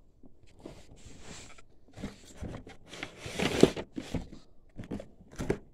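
Firework canister shells being handled and put back into their box: scattered rustling with a few light knocks, the sharpest about three and a half seconds in.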